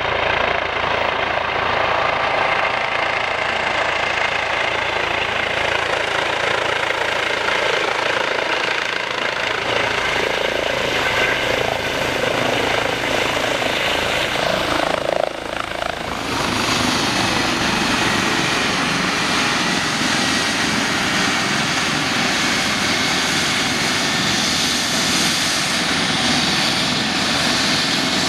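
Police Eurocopter EC135 helicopter approaching and landing: steady loud rotor and turbine noise. About halfway through the sound changes abruptly to a brighter turbine noise as it runs on the ground with the rotor turning.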